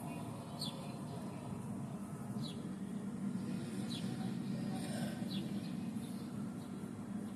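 A small bird chirping outdoors: four short, high, falling chirps a second or two apart, over a steady low hum.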